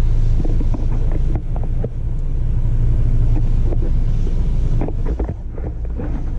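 Ford ST car's engine running with a steady low drone, with wind on the microphone and a few light knocks.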